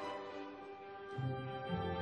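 Background music of held notes; a lower note comes in a little after a second in, and the music swells again near the end.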